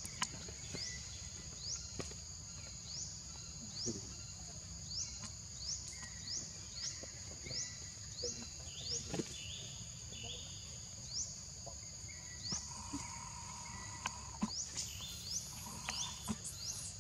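Forest insects buzzing steadily, high-pitched, with a rising chirp that repeats a little under twice a second, over a low rumble of background noise and a few faint clicks.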